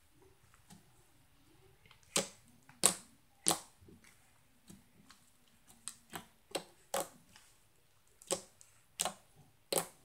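Black slime being pressed and poked with fingers, giving sharp pops and clicks, about eleven in all: three loud pops about two to four seconds in, a quicker run of smaller ones around six to seven seconds, and three more loud ones near the end.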